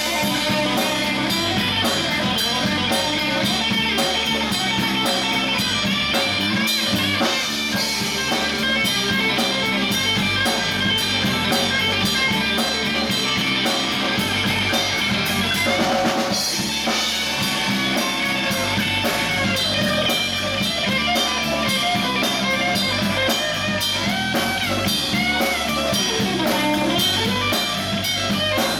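Live band playing an instrumental passage: lead electric guitar with bending notes over electric bass and a steady drum-kit beat.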